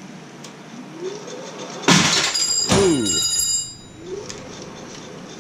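A sharp metallic clang about two seconds in, ringing for under two seconds, as the long fly cutter on the Bridgeport mill strikes metal: an accidental hit with the tool set at too much stick-out.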